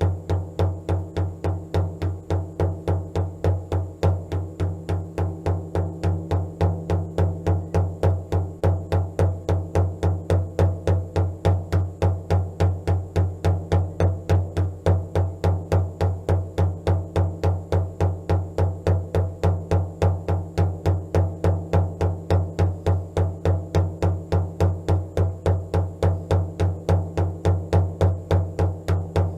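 Steady, even drumming of about three beats a second over a low sustained drone, played as meditation music.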